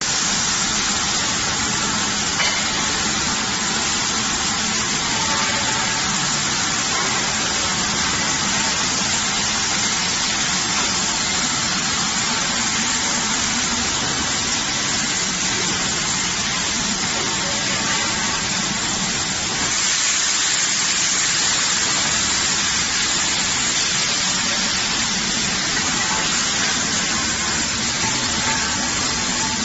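Steady hissing noise from a double-head circumferential seam welding machine at work, growing slightly louder and brighter about twenty seconds in.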